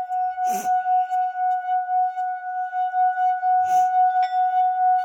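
Metal singing bowl rubbed around its rim, singing one strong steady tone with higher overtones and a fast pulsing wobble in loudness. Two short rustling bursts cut across it, about half a second in and near four seconds.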